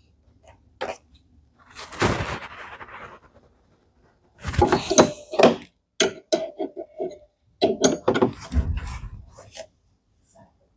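Metal tools clinking, knocking and scraping against the dryer's metal parts in irregular bursts as a nut is tightened with a 17 mm wrench.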